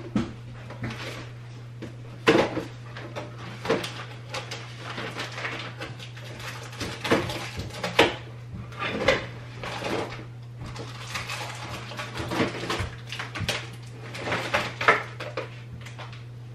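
Plastic dishes and cups clattering as they are stacked and set onto cabinet shelves: a string of irregular knocks and clinks. A steady low hum runs underneath.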